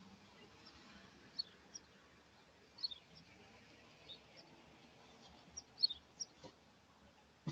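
Faint bird chirps, short and falling in pitch, scattered every second or so over a steady low hiss.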